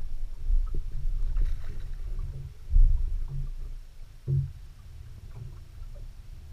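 Uneven low rumble of water slapping a fiberglass skiff's hull, with wind on the microphone. Several dull knocks on the deck sound through it, the loudest about three seconds in and another a little over four seconds in.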